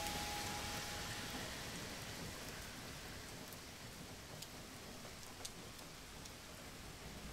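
Rain falling: a steady soft hiss with a few sharp drop ticks, slowly growing fainter. The last held notes of music die away about a second in.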